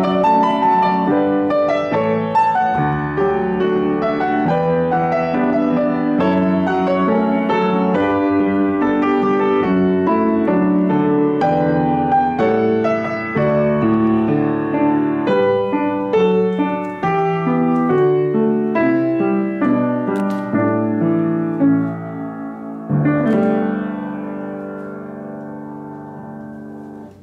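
Upright acoustic piano playing a solo arrangement of a Japanese pop song, thinning out near the end to a final chord that is held and dies away.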